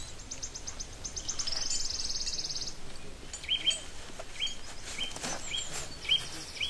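Forest songbirds singing. A series of high notes speeds up into a fast trill, then a bird repeats short chirps about twice a second.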